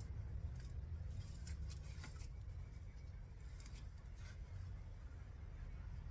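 Faint scratchy rustling and scraping of garden soil being dug through while harvesting potatoes, in a few short clusters, over a low steady rumble.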